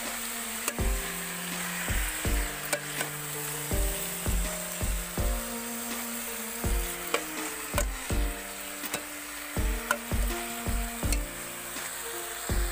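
Diced vegetables sizzling as they fry in a metal pot, with a steel ladle stirring and clinking now and then. Background music with a steady beat plays over it.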